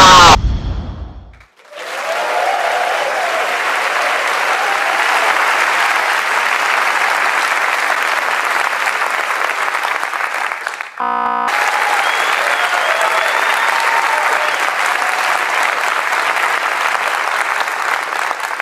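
The tail of a loud explosion dies away in the first second and a half. A large audience then applauds and cheers, broken once near the middle by a brief cut.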